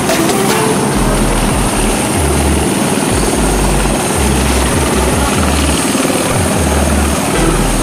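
Helicopter running on the ground: a steady, loud rush of turbine and rotor noise, with irregular low rumbles from wind buffeting the microphone.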